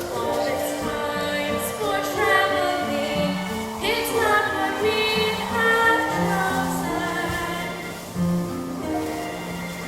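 Young performers singing a stage-musical song over instrumental accompaniment.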